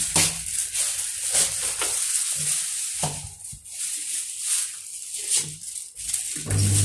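Irregular crackly rustling and scraping of close handling noise, with a steady low hum starting near the end.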